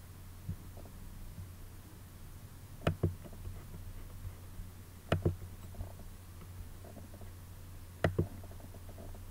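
Computer mouse double-clicked three times, each a quick pair of sharp clicks, over a steady low electrical hum.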